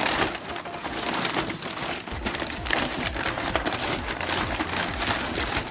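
Packaging being unwrapped and handled: dense, continuous crinkling and crackling.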